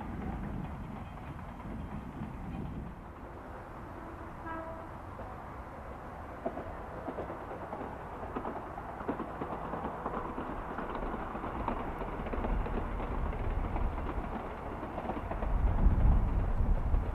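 Chichibu Railway train running along the track, a steady rumble with scattered clicks that grows louder toward the end as it comes nearer. A brief pitched tone sounds about four and a half seconds in.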